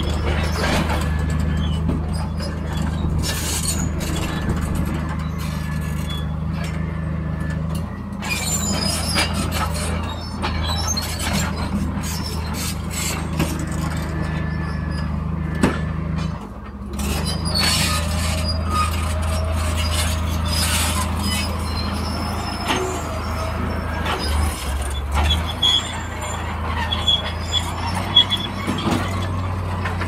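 Bulldozer's diesel engine running steadily under load. Its steel tracks squeal and clank over it, and the engine note drops briefly about halfway through.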